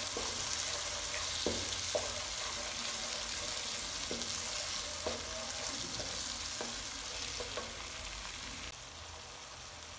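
Ground onion and ginger-garlic paste sizzling in hot oil in a nonstick kadhai as it is browned, with a wooden spatula stirring and knocking against the pan now and then. The sizzle gets quieter near the end.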